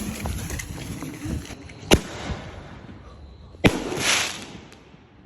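Firework mortar shell going off from its tube: a hissing at the start, then two sharp bangs about a second and three quarters apart, the second followed by a brief hissing spray that fades away.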